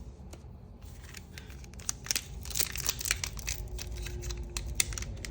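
Foil Pokémon booster pack wrapper crinkling and tearing. It starts about two seconds in as a dense run of sharp crackles.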